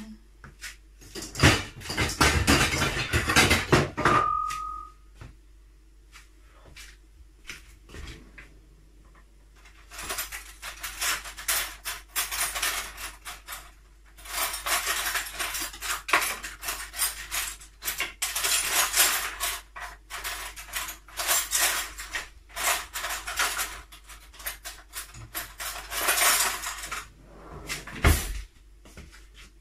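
Kitchenware being handled: pots, dishes and utensils clattering and knocking in spells of several seconds, with a brief high tone just after four seconds in and a dull thump near the end.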